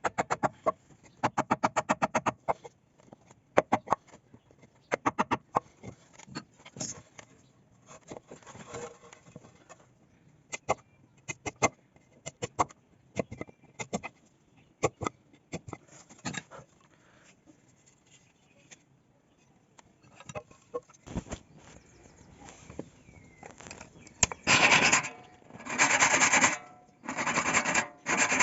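Hand woodworking: quick runs of light taps and scattered knocks on wood, then near the end long rasping strokes on wood, about one a second, as from sanding, filing or sawing by hand.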